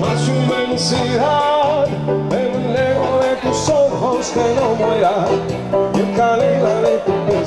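Background music: a song with a sung melody over steady instrumental accompaniment.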